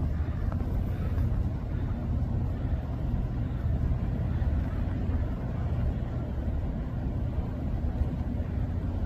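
Steady low rumble with a fainter hiss above it.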